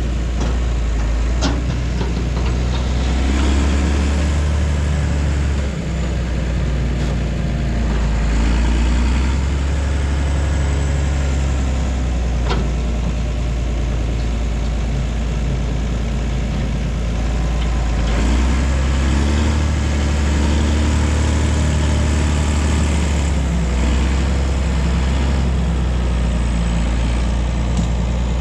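Heavy diesel engine running steadily at a low, even speed, with a couple of short sharp clicks.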